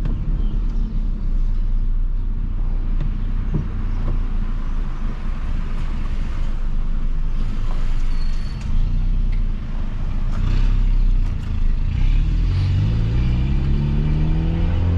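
Peugeot 206 1.4 engine running through a straight-pipe exhaust with only the pipe left, a steady low drone while driving. From about twelve seconds in, the engine note climbs steadily as the car accelerates.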